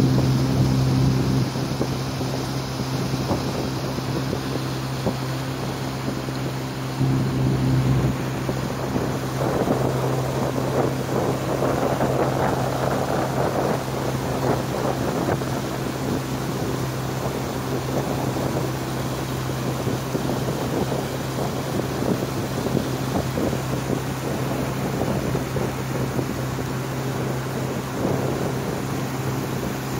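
Small fishing boat's motor running steadily with a low, even hum, under wind on the microphone and water noise along the hull that grows louder for several seconds about ten seconds in.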